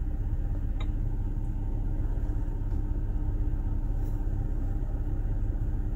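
2015 Chevrolet Impala's engine idling, a steady low rumble.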